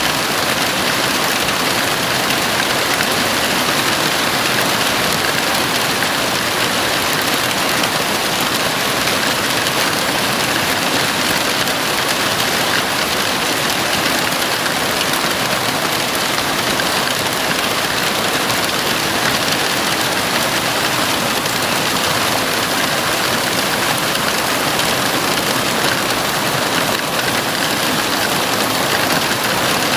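Heavy rain falling steadily on a house roof, a dense, even hiss of drops with no breaks.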